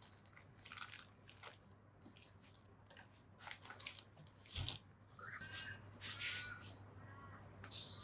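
Hand tools and small metal engine parts being handled: scattered clicks and scrapes, a sharp knock about halfway through, and a few short metallic squeaks near the end.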